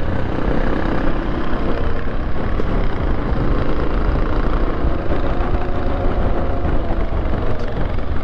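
Yamaha Ténéré 700's parallel-twin engine running steadily at cruising speed, around 50 km/h, under heavy wind noise on the microphone.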